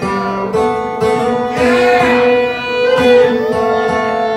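Live acoustic string-band music in a club: upright bass and acoustic guitar playing, with a held melody line that slides between notes.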